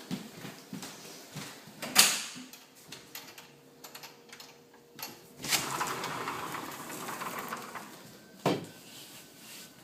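Footsteps and knocks with a sharp knock about two seconds in, then a door sliding open with a rushing, rolling noise for about two and a half seconds, and another sharp knock near the end.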